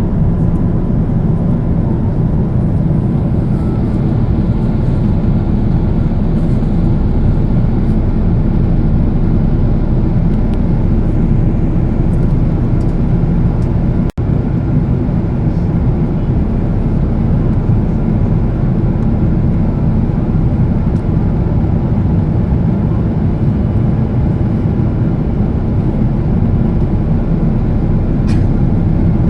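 Steady cabin drone of a Boeing 777-200ER airliner in descent: engine and airflow noise heard from inside the passenger cabin, broken only by a momentary gap about 14 seconds in.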